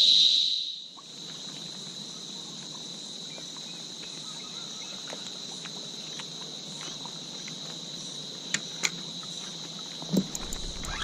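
A steady, high-pitched chorus of insects, with a louder one cutting out about a second in while the rest keep trilling. Two sharp clicks come late on, and near the end there are knocks and a low rumble.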